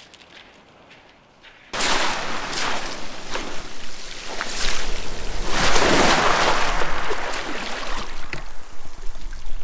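Surf washing in at the water's edge of a shingle beach, starting suddenly about two seconds in, with scattered sharp clicks of pebbles; the wash swells loudest a little after halfway.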